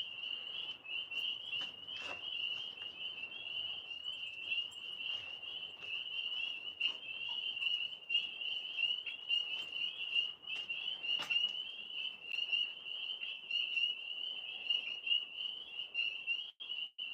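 A chorus of frogs calling without pause, a dense run of rapid high-pitched peeps all at about one pitch.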